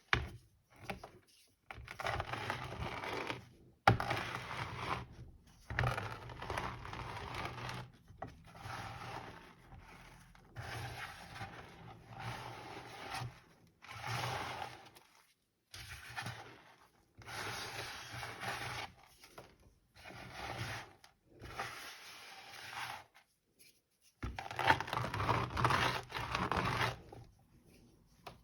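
Small pebbles of reformed gym chalk crunching and scraping as they are crushed under a rolling pin, in repeated strokes of one to two seconds with short pauses between them.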